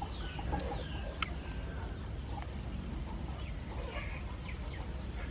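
Chickens in the background: scattered faint clucks and short high chirps over a low steady hum.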